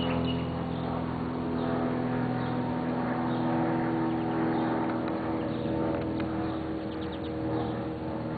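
A steady mechanical hum from a running motor: a low drone of several even tones, unchanging in pitch.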